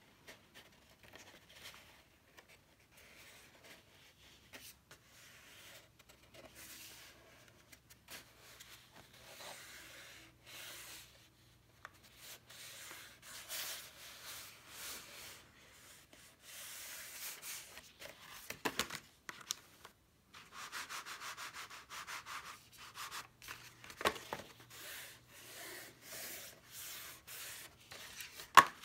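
Hands rubbing and pressing textured cardstock flat against a tabletop to set a freshly glued bottom, heard as on-and-off swishing. A few sharp taps of the paper piece on the table, the loudest near the end.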